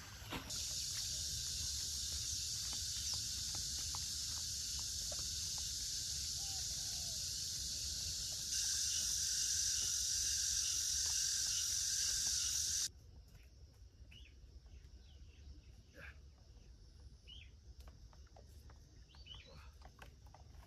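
Cicadas buzzing in a steady high chorus that gets louder partway through and cuts off abruptly about two-thirds of the way in, leaving faint bird chirps.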